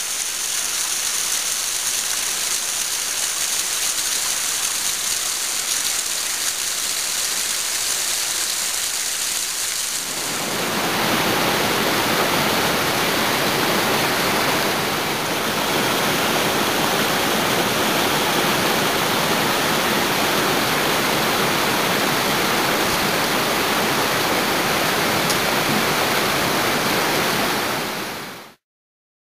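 Waterfall splashing onto rocks, a high hiss of falling water. About a third of the way in, it gives way to the fuller, deeper rush of a rocky stream, which cuts off abruptly near the end.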